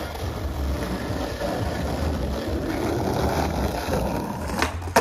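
Skateboard wheels rolling over rough street asphalt, a steady gritty rumble, then two sharp clacks of the board close together near the end.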